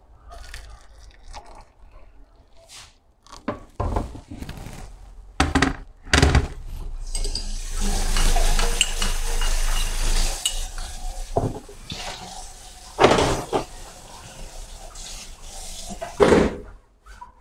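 Tableware handled: a spoon and ceramic cup clinking and knocking against each other and the wooden table several times. Midway there is a steady rushing, water-like sound for about three seconds.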